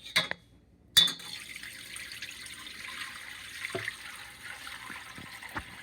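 Two sharp knocks, then about a second in a steady splashing pour of chicken broth from a pot through a strainer into another pot in a sink.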